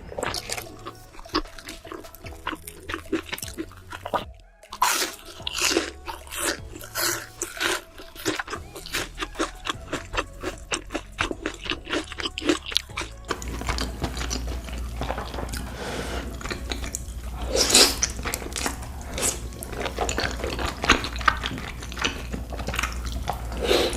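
Close-miked mukbang eating sounds: crunchy bites and wet, noisy chewing, many quick irregular crackles, in a few back-to-back clips.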